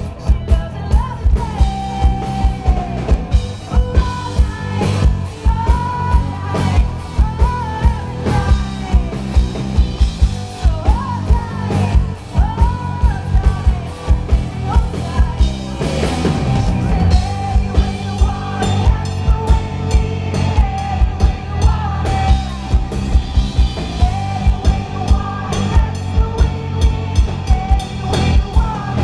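Live rock band playing: a singer over drum kit and electric guitar, with a steady driving beat.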